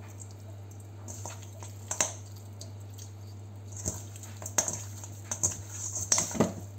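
A hand squishing and kneading raw lamb chunks in an oily herb-and-lemon marinade in a stainless steel bowl: wet squelches and slaps. They are sparse at first and come quickly one after another from about halfway through.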